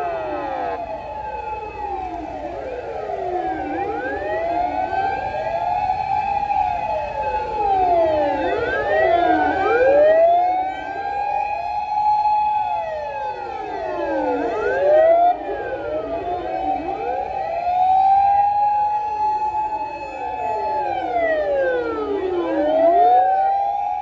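Sirens of several fire engines wailing at once, out of step with one another. Each slowly rises to a held high note and falls again over a few seconds, so the rising and falling tones overlap continuously.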